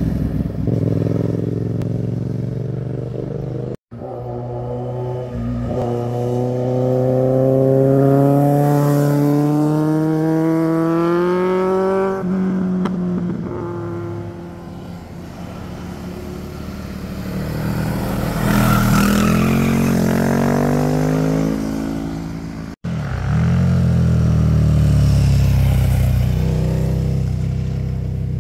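Motorcycles riding through a hairpin bend one after another. Their engines run loud, and the pitch climbs for several seconds as each bike accelerates out of the curve, then drops sharply at a gear change.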